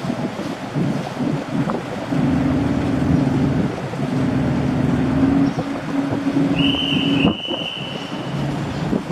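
Ferry's engine running with a steady low drone under gusts of wind on the microphone; the drone cuts off suddenly about seven seconds in. A thin, steady high tone sounds for about two seconds near the end.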